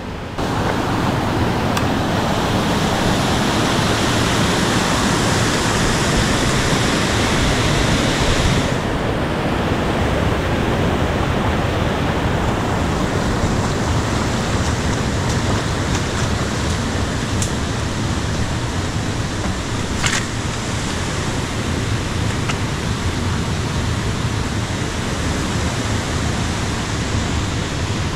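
A stream rushing, a loud, steady wash of running water. The hiss dulls a little about nine seconds in, and there is one brief click about twenty seconds in.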